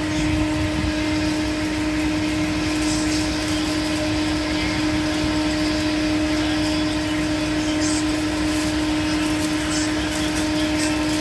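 Steady machine hum holding one constant low tone, with faint crinkling of plastic food sachets being torn and squeezed out.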